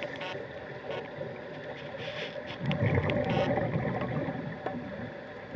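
Underwater sound of scuba divers breathing through their regulators: a steady muffled wash, with a louder stretch of exhaled bubbles rumbling and gurgling past midway through.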